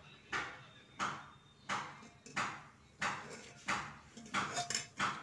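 Spoon scraping and stirring through thick cooked chana dal in an aluminium pressure cooker. It makes a regular stroke about every two-thirds of a second, each sharp at the start and then fading.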